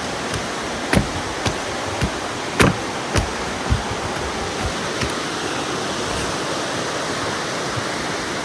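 Steady rush of flowing water, with a series of sharp thumps about every half second through the first five seconds.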